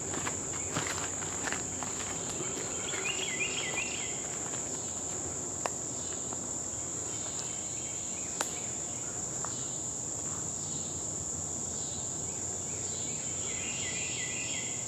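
Steady high-pitched drone of a summer insect chorus, with two short runs of quick repeated chirping notes, one a few seconds in and one near the end, and a couple of sharp ticks in the middle.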